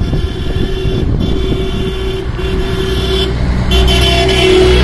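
Road traffic heard while riding along a road: low wind and engine rumble with a steady motor tone that cuts in and out, and a vehicle's engine growing louder near the end.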